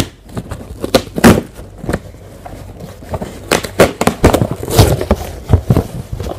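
Cardboard shipping box being handled and torn open: irregular scraping, crackling and sharp knocks of cardboard and tape, with hands bumping the box close to the microphone.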